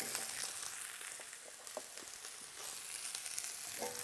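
Seared leg of lamb and chopped vegetables sizzling steadily in rendered fat in a hot 12-litre stainless-steel pot, with a few faint ticks.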